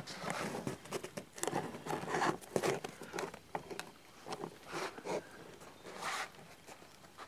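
A tin can being worked open with a knife: irregular scraping and clicking of metal, mixed with rustling of clothing close by.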